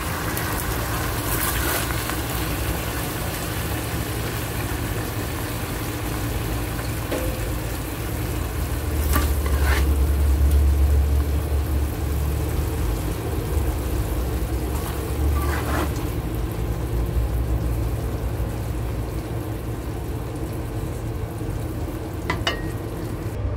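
Fish pieces in black bean and oyster sauce sizzling and bubbling in a hot nonstick wok, with the stove just switched off. Three brief scrapes of the spatula come through, with a low hum underneath.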